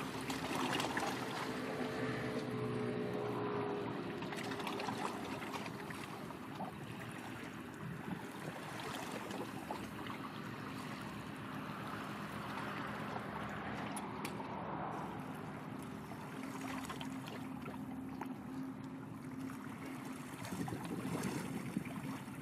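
Waterside ambience: water splashing and wind, under the low, steady drone of a distant ship's engine.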